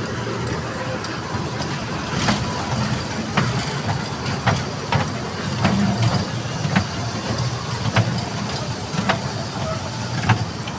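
Amusement kiddie train running past on its track with a steady low rumble. Sharp clicks come about once a second, starting about two seconds in.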